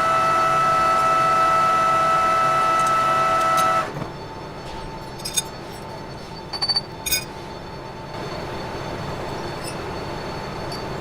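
Metal lathe turning a steel shaft, with a loud steady whine of several fixed tones. About four seconds in the whine stops abruptly, leaving the lathe running more quietly, with a few light metallic clicks a little later.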